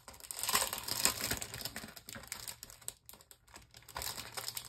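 Crinkling and rustling of a plastic die-set package being handled, with many small irregular clicks, busiest in the first couple of seconds and again near the end.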